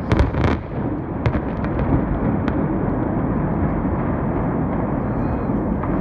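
Demolition charges in the Georgia Dome going off in a rapid string of sharp cracks over the first couple of seconds. A steady, loud rumble follows as the blasts carry on and the stadium structure begins to give way.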